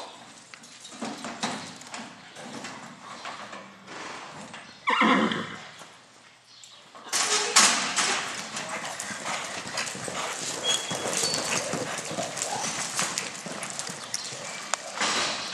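A roping horse shifting its hooves in the box, then whinnying once, short and sharp, about five seconds in. About seven seconds in comes a sudden loud clatter, and the horse gallops out across the arena dirt with rapid hoofbeats.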